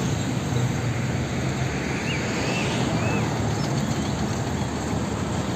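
Steady outdoor rushing noise with a low rumble underneath, like wind or vehicle noise, and a few faint bird chirps about two seconds in.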